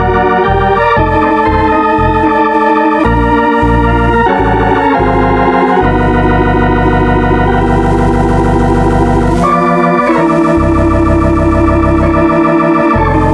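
Organ music: sustained chords that change every second or so over a shifting bass line.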